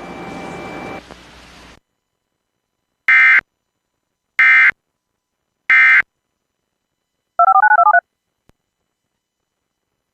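Emergency Alert System end-of-message code: three identical short bursts of buzzy data tones, a little over a second apart, marking the end of the alert. A brief warbling two-tone beep follows about a second and a half later.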